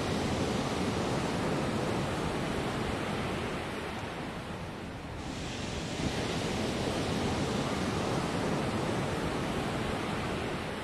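A steady rushing noise that eases off about five seconds in, then swells back as its hiss returns suddenly.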